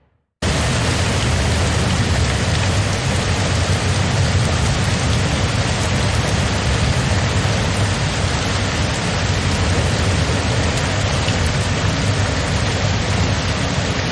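Heavy, steady rain with a low rumble underneath, cutting in suddenly about half a second in after a moment of silence.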